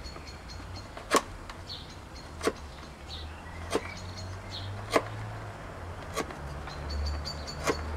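Knife cuts chamfering the end of a green-wood twig whistle's mouthpiece: six sharp clicks about a second and a quarter apart, each a blade snapping through a shaving. Faint high chirping in the background.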